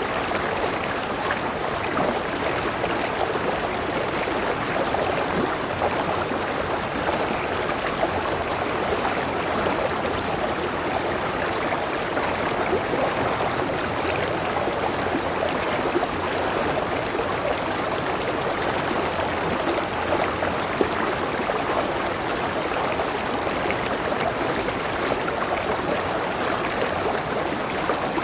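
A river running over rocks, with a small waterfall: a steady rushing and gurgling of flowing water.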